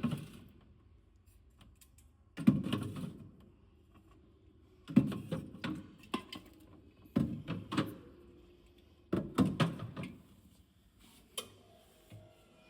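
Cans and bottles being moved around and set down on fridge shelves: six bursts of knocks and clinks, roughly every two seconds.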